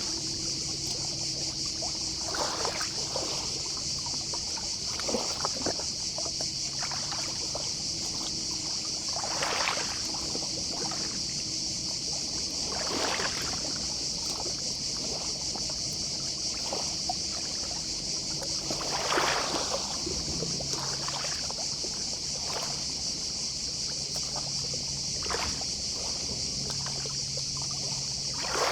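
Small, gentle sea waves washing onto the beach every few seconds, over a steady high, shrill chorus of distant cicadas.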